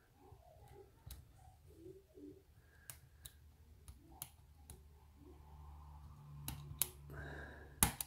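Small, sparse metallic clicks of a lock pick working the pin stacks of a cheap Euro cylinder held under tension. The sharpest click comes near the end, as a pin sets.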